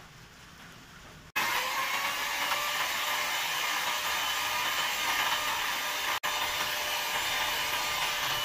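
Electric mixer motor switching on suddenly about a second in, its whine settling after a brief rise, then running steadily at high speed, with a momentary dropout later on.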